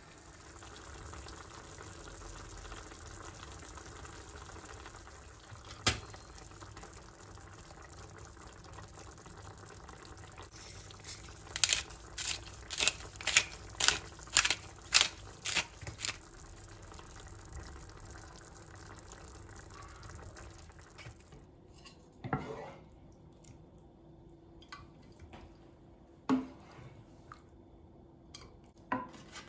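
Kitchen work with water: a steady watery hiss, a single sharp knock, then a quick run of about nine sharp knocks over some four seconds, and a few scattered knocks near the end.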